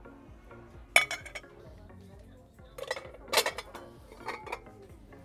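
Glass pie dish clinking against ceramic dishes as it is lifted off a stack and set down in a shopping cart: one sharp clink about a second in, then a quick cluster of clinks around three seconds and a few lighter knocks after.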